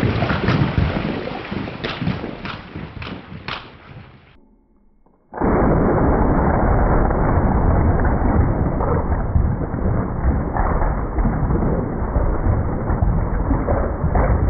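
12-gauge shotgun blast replayed: a rumble with a few sharp cracks of debris that fades away over about four seconds. After a brief near-silent gap about a second long, a long, low, slowed-down rumble comes in loud and holds steady under the slow-motion replay of the blast.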